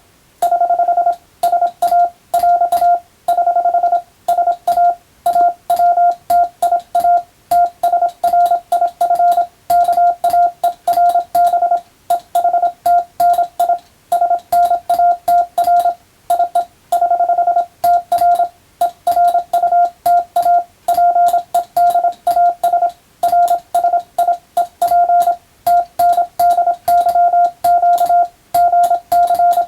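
Morse code sent by hand on a telegraph key: a single steady tone of about 700 Hz keyed rapidly into dots and dashes. The tone runs in groups of characters with short breaks between words, and a faint click comes with the keying.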